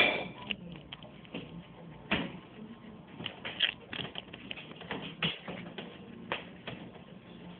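Guinea pig gnawing kernels off a corn cob: irregular crunching clicks, several a second.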